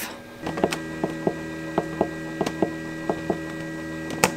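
Control-panel buttons on a Hova-Bator 2370 incubator clicking as the temperature setting is pressed down toward 99.5 °F. There are about five press-and-release pairs of short clicks and a louder click near the end, over a steady electrical hum.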